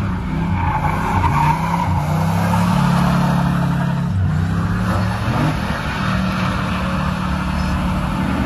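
A car's engine held at high revs while its tires squeal and spin, doing donuts in a takeover. The engine note steps up and down several times, with a quick rise a little past the middle.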